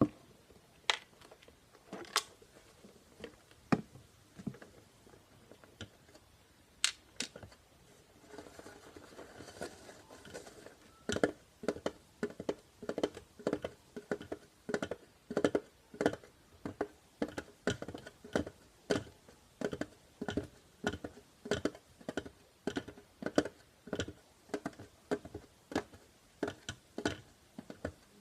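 Plastic Tupperware containers handled for ASMR: scattered clicks and knocks, a short scratchy rustle, then steady tapping at about two to three taps a second.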